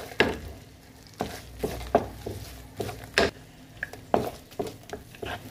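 A wooden spoon stirring mixed vegetables and egg in a non-stick frying pan, knocking and scraping against the pan in quick, irregular strokes.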